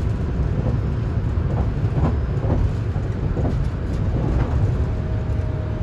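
Train running steadily over the rails, a continuous low rumble.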